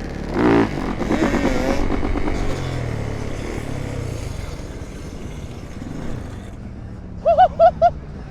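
Dirt bike engines revving and running: a sharp rev about half a second in, wavering revs over the next couple of seconds, then steadier running. Near the end come four quick, high, pitched chirps.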